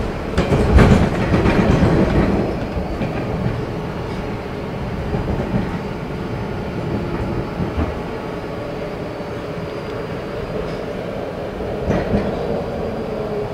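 Baltimore Metro subway car running along the track, heard from inside the car as a steady rumble of wheels on rail. There are a few louder knocks in the first couple of seconds.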